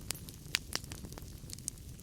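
Wood fire burning in a fireplace: logs crackling with irregular sharp pops, the loudest about half a second and three quarters of a second in, over a low steady rumble of the flames.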